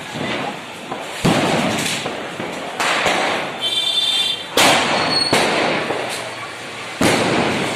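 Multi-shot sky-shot firecracker box firing: a series of about five sharp bangs roughly one and a half seconds apart, each trailing off. There is a brief high whistle near the middle.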